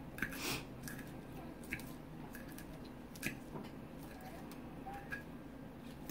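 Close-miked eating sounds: wet chewing and mouth sounds, with a handful of short, sharp clicks as a fork picks through salad on the plate.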